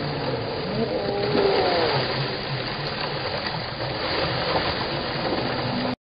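Ground-level fountain jets spurting up and splashing back onto wet paving, a steady hiss of falling water, with voices or calls in the background around a second in.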